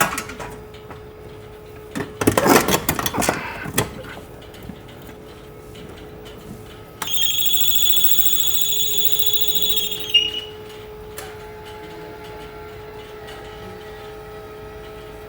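A brief clatter of handling knocks, then a steady, high-pitched electronic beep held for about three seconds that cuts off suddenly. A faint steady hum lies underneath.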